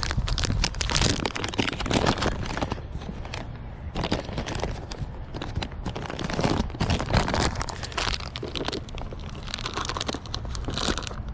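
Irregular rustling and crackling close to the microphone, like gear or clothing being handled, over a steady low rumble.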